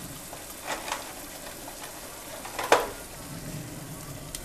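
Tomato, onion and corn sauce sizzling in a frying pan while a silicone spatula stirs it, with a few light scrapes and one sharp knock a little past halfway.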